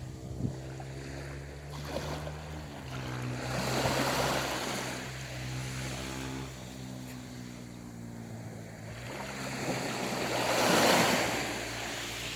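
Sea waves washing onto the shore, swelling twice, about four seconds in and again, louder, near the end. A steady low motor hum runs underneath.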